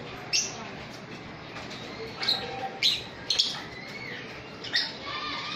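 Lovebirds giving about six short, sharp, high-pitched chirps at irregular intervals, with a couple close together in the middle.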